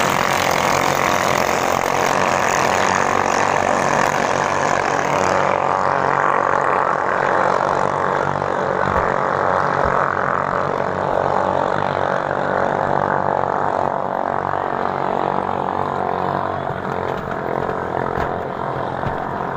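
Several ketinting long-tail racing boats with small Chinese-made engines running flat out together as a loud, continuous mechanical din. It eases off slowly near the end.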